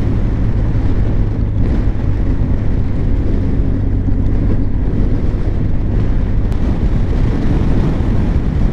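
Honda Crosstourer's V4 engine running steadily at cruising speed, with heavy wind noise on the microphone.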